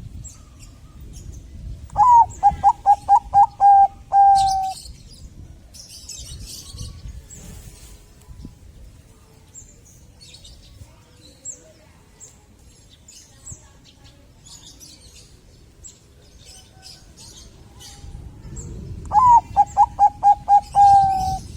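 Bangkok-strain zebra dove (perkutut) cooing its song twice: each phrase is a quick run of about seven short rolling notes ending in one longer held note, the second phrase near the end.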